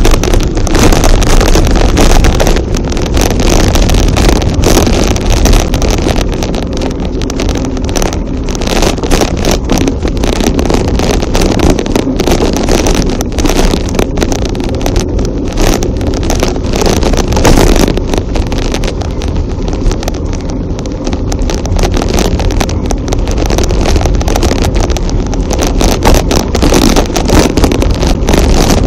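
Steady wind buffeting on the microphone while riding a bicycle off-road, with frequent knocks and rattles from the bumpy dirt trail.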